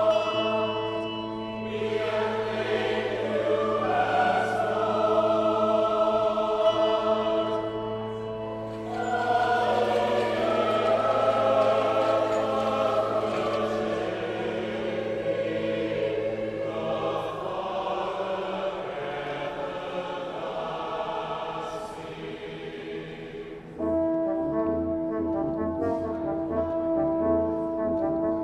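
Choral music: a choir singing with brass accompaniment over a low held bass note. About three-quarters of the way through the singing gives way to brass players carrying on alone.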